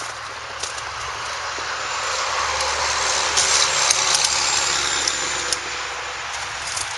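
A road vehicle passing by: its engine and tyre noise swells to a peak midway and then fades away.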